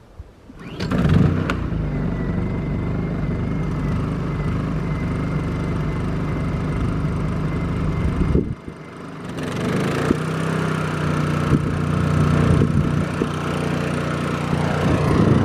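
Two small portable inverter generators, a Pulsar 2300 and a Honda EU2000i, running steadily, heard one after the other. The first comes in sharply about a second in and drops away about eight and a half seconds in. The second builds up from about ten seconds.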